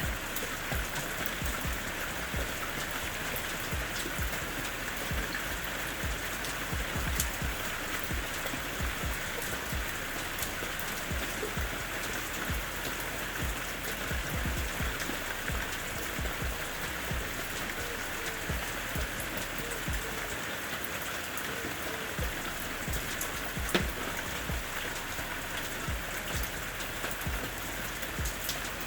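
Steady rain falling, a dense even hiss with scattered individual drops ticking, and one sharper, louder drop tick near the end.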